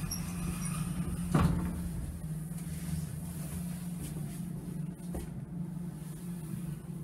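KONE lift's sliding glass car doors closing, meeting with a single knock about a second and a half in. A steady low hum runs underneath.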